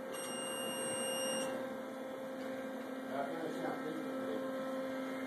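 A steady hum with faint voices in the background; a thin high whine sounds over it for about the first second and a half.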